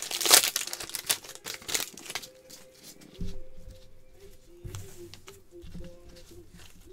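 Crinkly wrapper of a Panini Select baseball card pack being torn open, loudest in the first half-second, with smaller crackles for about two seconds. After that come quieter sounds of cards being handled, with a couple of soft knocks.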